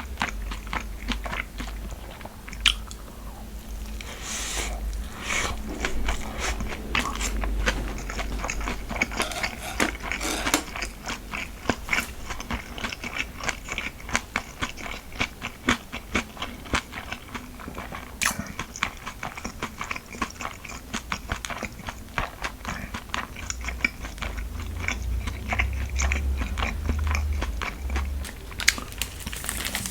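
A person chewing and biting food close to the microphone: a dense, irregular run of small clicks, with a few sharper ones about three seconds in and again around the middle.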